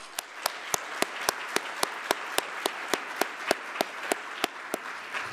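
Audience applause filling the hall, with one person's claps standing out clearly above the rest at about three to four claps a second.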